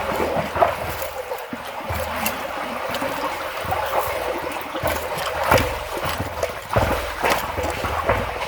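Water running and trickling as a beaver dam is cleared from a culvert, with a few short thumps and splashes from the debris being worked, the loudest about five and a half seconds in.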